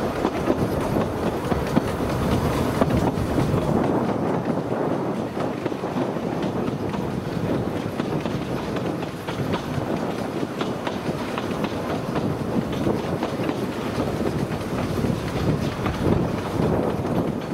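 Narrow-gauge railway train running steadily along the track: continuous rolling noise of the wheels on the rails, with fast, irregular clicking.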